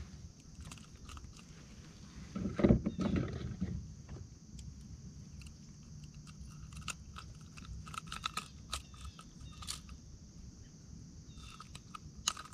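Handling noises while a small pike is unhooked with pliers: a loud bump and rustle about two and a half seconds in, then scattered clicks and light scrapes.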